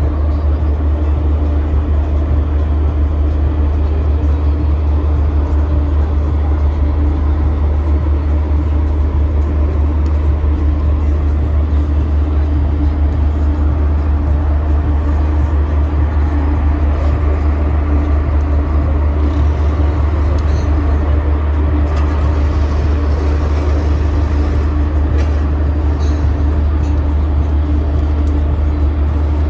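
Steady low drone of a passenger ferry's engines heard on board, with a constant hum above it that does not change in pace.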